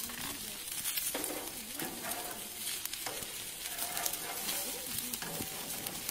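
Chicken leg quarters sizzling on a hot grill grate as they are turned over with metal tongs, with a few short scrapes and clicks of the tongs on the grate.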